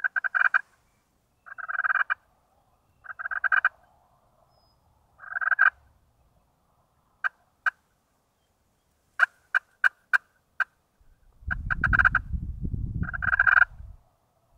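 Wild turkey calling: short rattling calls repeated every second or two, with a few sharp single clicks in the middle. A low rumble on the microphone comes in near the end.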